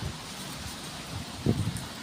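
Steady outdoor roadside background noise with a short, sharp sound about one and a half seconds in.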